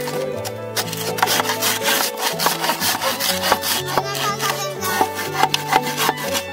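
Hand saw cutting through bamboo in a run of quick back-and-forth strokes, over background music.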